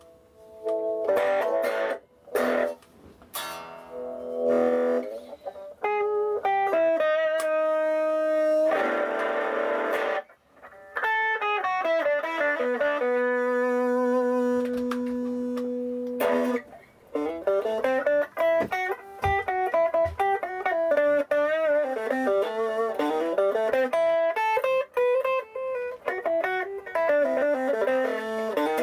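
Aria Pro II RS Wildcat electric guitar played through a small Marshall amp. It plays chords and picked notes with short breaks, then a long held note about halfway through, then quick runs of notes climbing and falling.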